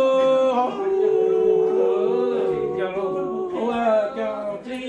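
A man singing Hmong lug txaj, a chanted poetry, unaccompanied: long held notes, with the pitch dropping about a second in, then wavering and sliding.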